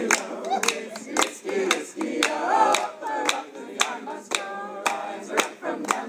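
A group of voices singing a song together in time with steady hand clapping, about two claps a second.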